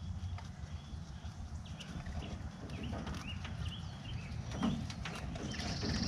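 Rabbits rustling and clicking about a wire-floored hutch as they nibble broccoli leaves, over a low outdoor rumble, with a few faint short bird chirps.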